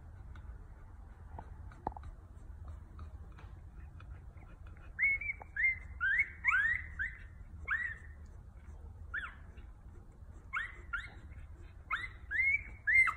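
Newborn red-nose pit bull puppies squeaking: about a dozen short, high squeals that rise and fall in pitch, starting about five seconds in and coming in clusters to the end.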